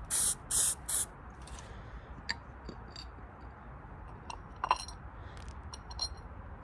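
Degreaser sprayed in three short hissing bursts within the first second, then a few light clicks and clinks of plastic and metal as the parts are handled.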